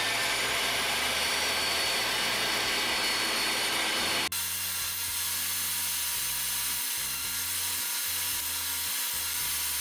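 Table saw running steadily while a small piece of wood is fed into the blade. The sound changes suddenly about four seconds in and then carries on at the same level.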